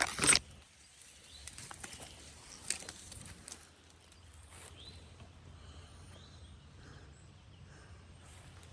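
Woodland ambience: a short, loud crackle right at the start, then a few light clicks and rustles, with faint bird chirps over a low steady background.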